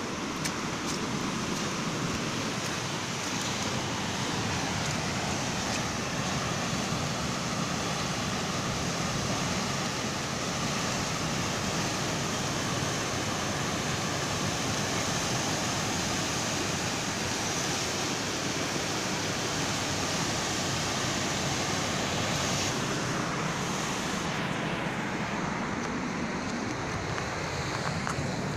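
Steady rushing roar of a swollen river in flood, its turbulent water churning in rapids; the high hiss thins near the end.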